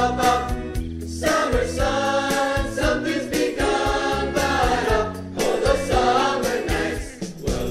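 Pop song with several voices singing together over a backing track with a steady drum beat.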